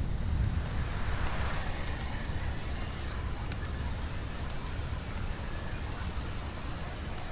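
Steady rain in a recorded rain soundscape: an even hiss over a deep, constant low rumble, with a few faint sharp drip ticks.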